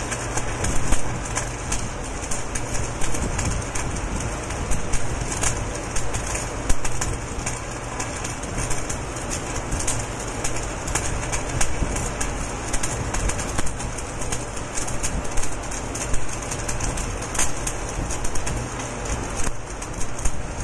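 Electric arc welding on a large spiral steel pipe: the arc crackles and sizzles steadily, with irregular louder pops, over a low steady hum.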